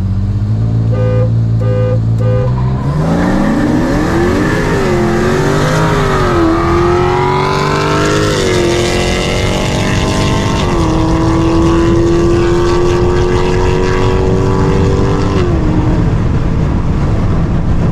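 Ford Explorer Sport's twin-turbo 3.5-litre EcoBoost V6, heard from inside the cabin, held steady at about 2,000 rpm against the brakes while the car horn honks three short times as the start signal. The engine then launches at full throttle, rising in pitch through several upshifts, before the throttle is released and the revs fall away near the end.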